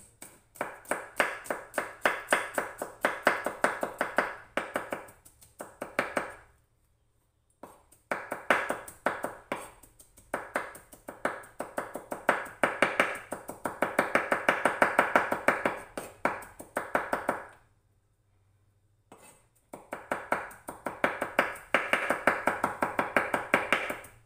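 Large kitchen knife rapidly mincing garlic on a wooden cutting board: quick, sharp chopping taps, about five a second, in long runs broken by two short pauses.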